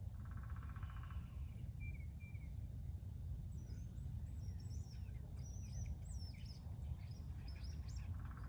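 Small songbirds chirping and singing in quick high twittering notes that grow busier from a few seconds in, over a steady low rumble. A short buzzy call sounds near the start and again at the end.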